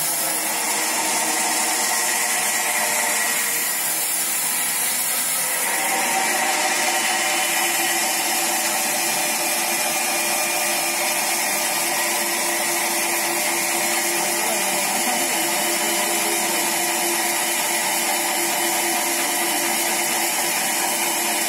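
Large vertical band saw cutting lengthwise through a big log: a steady, loud machine noise with a hiss and a held whine, whose tone shifts about six seconds in.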